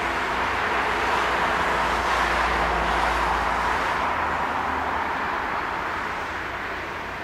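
A vehicle passing by: a rushing noise that swells to its loudest two to three seconds in and then fades, with a low rumble that drops away about five seconds in.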